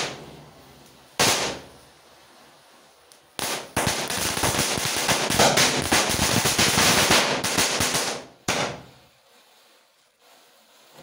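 Diwali firecrackers going off one after another: a single bang about a second in, then a dense crackling run of rapid pops lasting about five seconds, and another bang just after it stops.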